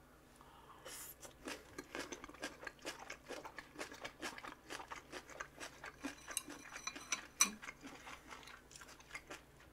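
A person chewing crunchy food close to the microphone: many small, irregular crunches, with one louder crunch about seven seconds in.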